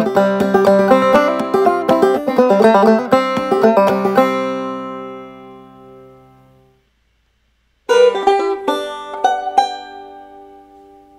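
Open-back banjo played clawhammer (frailing) style: a lively run of picked and brushed notes ends about four seconds in, and the last chord rings out and dies away. After about a second of silence, a short phrase of plucked-string notes starts and rings out.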